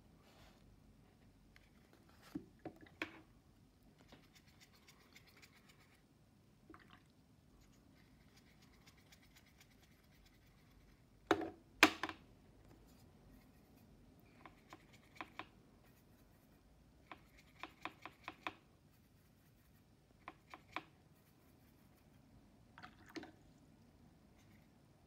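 Light clicks and taps of a paintbrush against a metal watercolour paint tin and a glass water jar, coming in small clusters, the loudest a pair about halfway through, with faint scratching of the brush working the paint between them.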